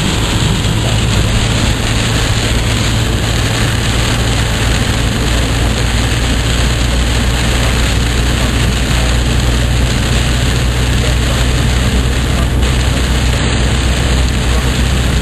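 Inside a car driving through heavy rain: a steady low engine-and-road drone under an even hiss of rain and wet road spray on the car.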